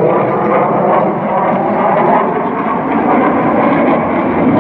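Military jet aircraft flying overhead, their jet engines making a loud, steady noise.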